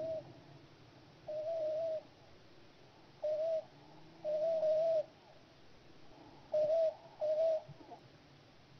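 Duck calling: a loose series of about six short, slightly wavering whistled notes, all at the same pitch. Most last under half a second and one lasts nearly a second.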